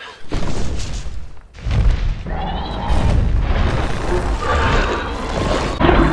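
Film sound effects of deep booming rumbles and crashes over music. A first boom comes just under half a second in, then a short lull, then a heavier rumble that carries on.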